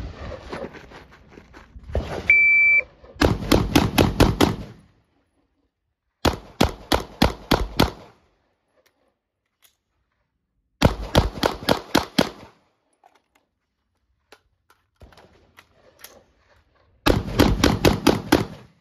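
A shot timer's electronic beep about two seconds in, then four rapid strings of about six gunshots each from a pistol and a rifle, with short silent pauses between strings for reloads and the weapon change.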